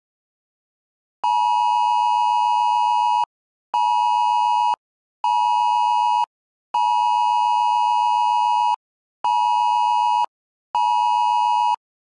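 Phone Wireless Emergency Alert tone: a harsh, loud two-pitch tone starting about a second in. It sounds in the alert's cadence, one long tone of about two seconds followed by two shorter one-second tones, and the pattern plays twice.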